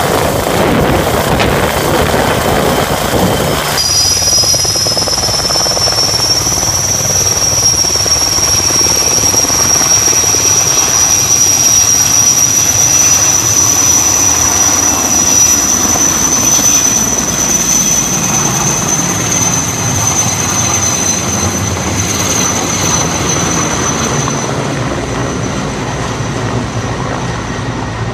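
Firefighting helicopter's turbine engine and rotor running close by. After an abrupt change about four seconds in, a steady high turbine whine rises slightly, holds, and fades near the end over the continuing rotor and engine noise.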